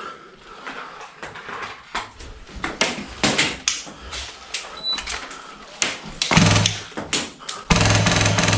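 Airsoft gunfire: scattered single shots and short strings of cracks, a short automatic burst about six seconds in, then near the end a long, loud full-auto burst from a Polar Star Fusion Engine MK46 airsoft light machine gun.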